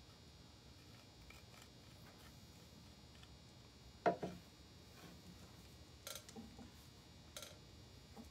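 Small objects being handled and set down on a worktable: one light knock about four seconds in, then two small clicks, over quiet room tone.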